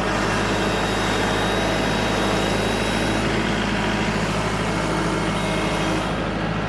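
Kubota L4701 tractor's diesel engine running steadily.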